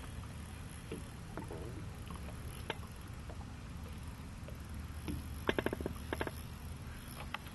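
Choppy lake water lapping against a small boat, with wind on the microphone. About five and a half seconds in comes a quick run of clicks from the fishing reel while a hooked trout is being played.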